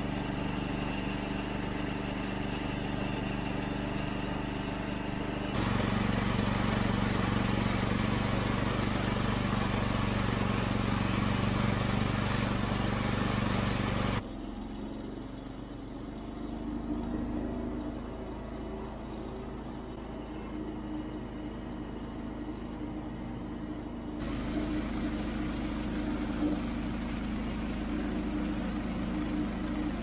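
Toro Wheel Horse 520H garden tractor's Onan P220 twin-cylinder engine running steadily while the tractor drives and mows. The engine sound gets louder about five seconds in, drops sharply near the middle, and comes back up about two-thirds of the way through.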